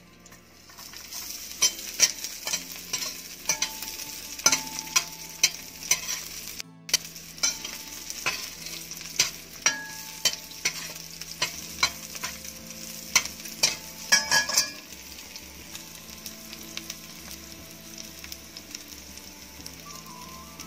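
Sliced garlic sizzling in hot olive oil in a stainless steel wok, stirred with a metal spoon that clicks and scrapes sharply against the pan many times. Near the end the clicking stops and the steady sizzle goes on alone.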